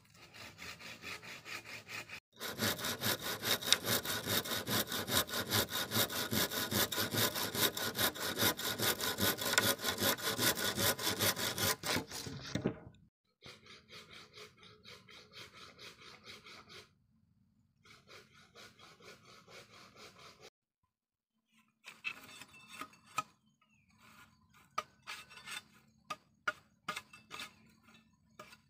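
Hand saw cutting through a wooden log with rapid back-and-forth strokes, loudest from a couple of seconds in until about halfway through. After that come quieter stretches of stroking with gaps, then scattered sharp taps.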